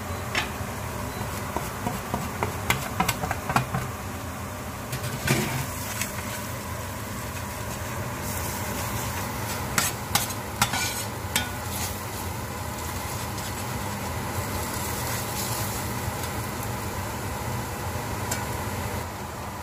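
A metal spoon stirs and scrapes a frying mixture of onions, garlic, chili and spices around a stainless steel pan. The food sizzles steadily, and the spoon makes scattered sharp clicks against the pan.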